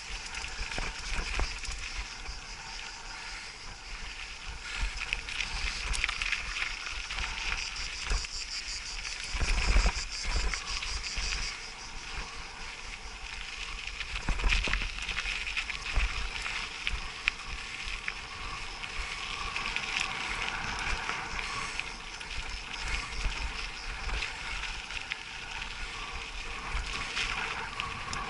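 A mountain bike ridden over a rocky dirt trail: tyres crunching over gravel, and the bike rattling with wind rumbling on the microphone. There are a few heavier knocks over bumps, the loudest about ten seconds in.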